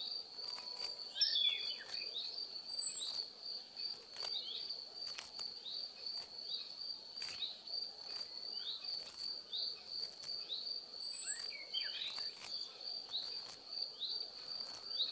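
Steady, high-pitched, pulsing insect trill, with short falling chirps about once a second and a few faint clicks.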